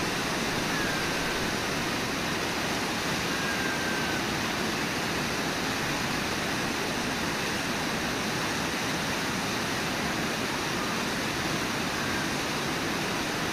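Steady rushing roar of Brooks Falls, the Brooks River pouring over a low rock ledge in white water.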